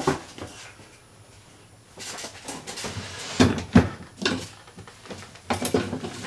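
Rummaging through tools and objects on a workbench while searching for a spray can: an irregular run of clunks and clatters, quieter at first and then busier after about two seconds.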